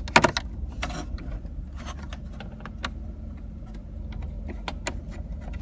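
Hummer H2 automatic gear shifter being worked by hand after a shift-cable repair, giving irregular sharp clicks and knocks over a steady low hum.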